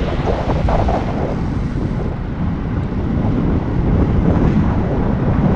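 Heavy wind noise buffeting the microphone of a camera riding along with a group of road bicycles, a dense low rumble with hiss.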